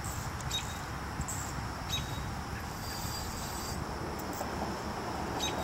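Steady outdoor evening background noise, a low rumble with hiss, broken by three short high chirps: about half a second in, about two seconds in, and near the end.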